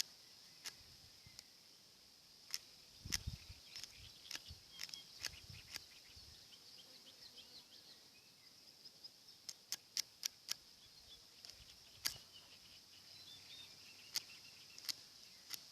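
Short, sharp scrapes of a high-carbon steel striker dragged down a small fire-steel rod from a paracord survival bracelet, struck again and again in irregular bursts to throw sparks onto char-cloth tinder.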